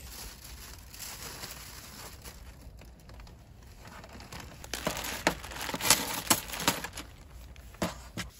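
Crinkling and rustling of camping gear and packaging being handled, with a run of sharp crackles and knocks starting about halfway through and one more near the end.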